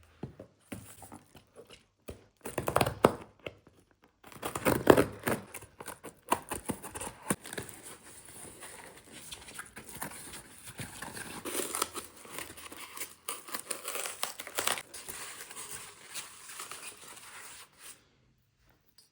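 Packaging being crinkled and torn open by hand while a parcel is unboxed. Bursts of crackling come and go, loudest about three and five seconds in, and stop shortly before the end.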